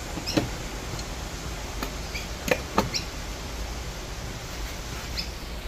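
A few light knocks and clicks of a plastic outboard fuel tank being pressed and seated onto the motor by hand. Short high bird chirps come now and then over a low steady hum.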